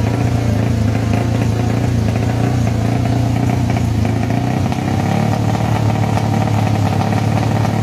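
A single-cylinder Yamaha Sniper 150 motorcycle engine running at a steady speed while its engine-control box is tuned from a laptop, with a slight change in its note about five seconds in.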